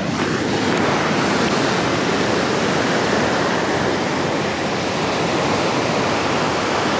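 Ocean surf washing onto a beach: a steady rushing noise with no break.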